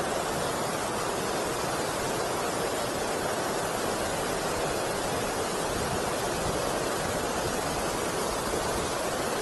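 Water rushing steadily over and below a river weir, a constant even roar of falling and churning water.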